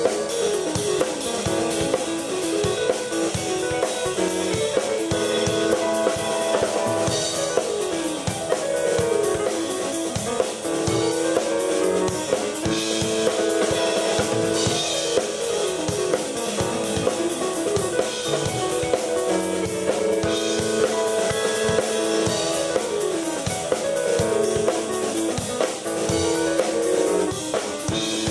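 Live keyboard and drum kit duo playing an instrumental rock jam: a repeating keyboard riff that steps up and down in the midrange over a steady drum beat.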